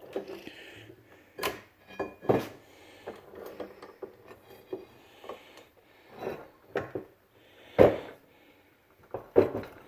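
Steel tire spud bar clanking against a 6-inch bench vise as it is set between the jaws and locked in. The sound is a series of irregular metallic knocks and clinks, with the loudest about two seconds in and near eight seconds.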